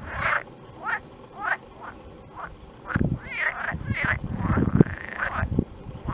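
Frogs croaking over and over: a steady run of short calls from several animals overlapping, some sliding up and down in pitch, with deeper croaks beneath.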